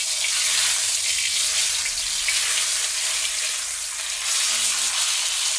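A whole seasoned snapper sizzling in hot oil in a frying pan, a loud, steady hiss of frying.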